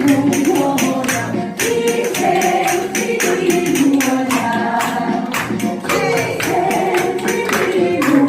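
Spoons struck together in quick rhythmic clacks, played as percussion along to a sung Korean popular song with backing music.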